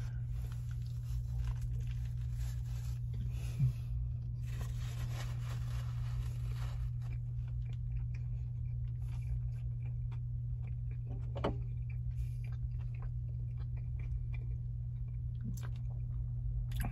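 A man biting into a bacon cheeseburger with fried onions and chewing it, with faint crunching and small mouth clicks, over a steady low hum inside a car cabin.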